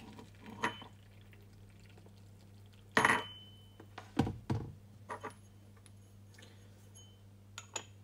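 Hot water poured from an electric kettle onto tea leaves in a porcelain gaiwan. About three seconds in the kettle is set down with a loud ringing clunk, followed by two duller knocks. Near the end comes a light porcelain clink as the lid goes onto the gaiwan.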